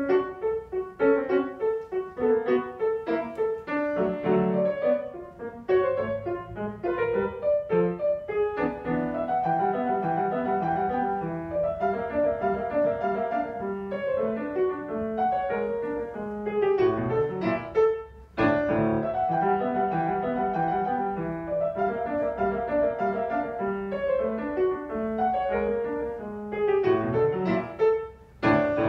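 A grand piano played solo: a piece of quick runs and chords that begins right at the start. It breaks off briefly about 18 seconds in, and a loud final chord is struck near the end and left to ring away.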